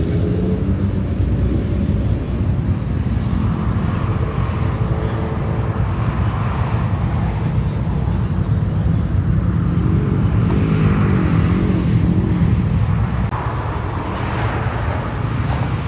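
Vehicle engines running close by, a steady loud low rumble, with a wavering pitched note about ten seconds in and again near the end.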